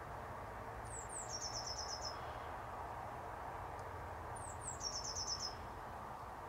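A small songbird sings a short high phrase twice: two quick falling notes, then a fast run of about six notes. Under it is a steady outdoor background hiss.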